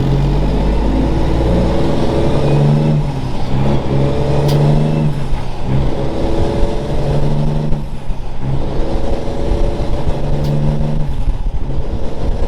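Heavy truck's diesel engine running under load, pulling in stretches of a couple of seconds that break off about every two and a half seconds as the gears change.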